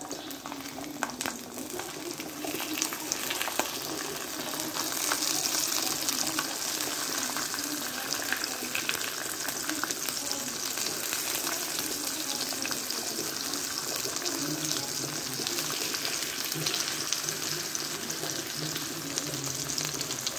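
Salmon fillet pieces sizzling in their own fat in a frying pan: a steady hiss with fine crackling that grows louder over the first few seconds and then holds.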